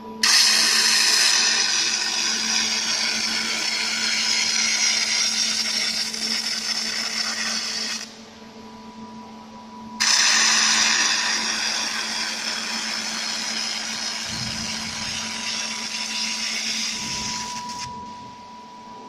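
Robotic fiber laser welding station running through two weld passes: a loud whirring hiss that starts abruptly, runs about eight seconds, stops, and then starts again for another eight seconds.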